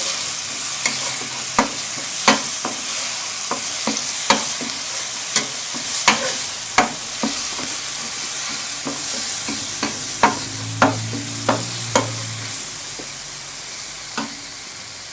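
Ground spice paste of garlic, shallot, candlenut and chili sizzling in hot oil in a pan, with a steady hiss. A spatula stirs it, scraping and knocking against the pan in irregular clicks about once a second.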